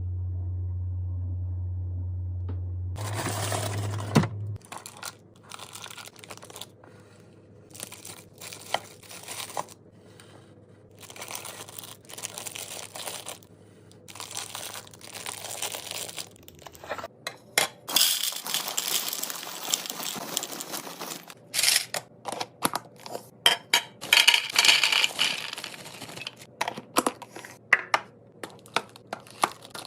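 Plastic packaging crinkling and tearing, with many irregular clicks and taps of items being handled and set down while snacks and drinks are unpacked and restocked. A low steady hum runs for the first four seconds or so, and the crinkling is busiest in the second half.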